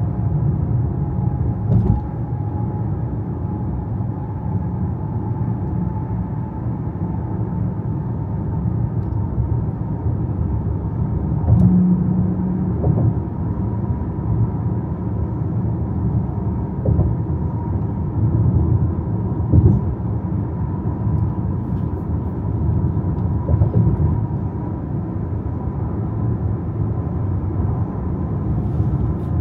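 Steady low rumble of a car driving on the road, with a faint steady whine and a few bumps along the way.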